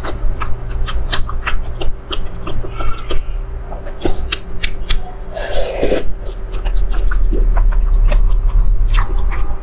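Close-miked wet chewing of soft dumplings, with many quick, irregular mouth clicks and lip smacks over a steady low hum, and a brief louder noise about five and a half seconds in.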